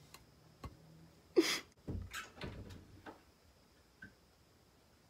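Handling noise close to the microphone: a short, sharp scraping rustle about a second and a half in, followed by a run of dull knocks and bumps for about a second, and a faint click near the end.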